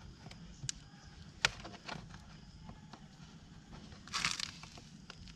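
Hands working a rubber grommet into the groove of a motorcycle chain-cover window. There are scattered light clicks, a sharper click about a second and a half in, and a short scraping rustle around four seconds in.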